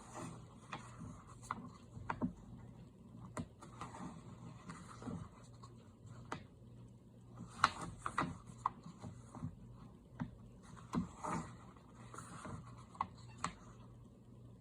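Pages of a colouring book being turned and handled: soft paper rustles and light taps at irregular intervals, over a faint steady low hum.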